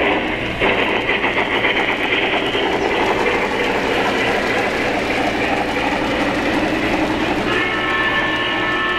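Three-rail O-scale model freight train rolling past on its track, a dense, continuous clatter of wheels over the rails. A steady tone joins near the end.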